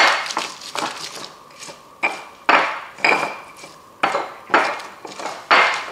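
Stone pestle grinding chopped chilies, garlic and shallots in a stone mortar (Indonesian cobek and ulekan): stone-on-stone strikes and scrapes through the wet paste, coming in quick runs of three or four strokes with short breaks between.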